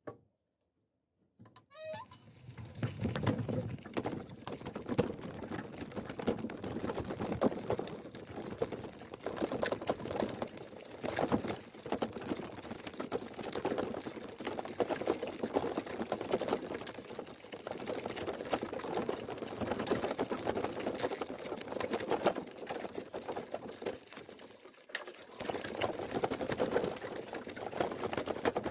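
Rustling, knocking and rattling picked up by a camera clipped to a person walking to fetch water, beginning with a short squeak about two seconds in.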